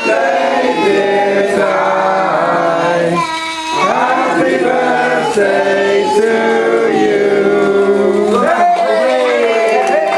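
A group of people singing a birthday song together, out of tune.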